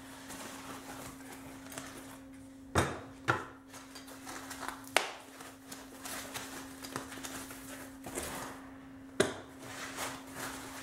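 Copper bus bar blocks being unwrapped from white packing wrap and set down on a table: rustling and handling noise with several sharp knocks, the loudest about three seconds in, about five seconds in and near the end. A steady low hum runs underneath.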